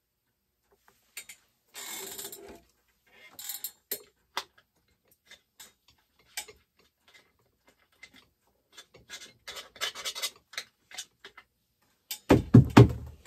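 Metal tools and parts being handled at a steel bench vise: scattered light clicks and short scrapes, a denser run of scraping a few seconds before the end, then a few heavy knocks near the end.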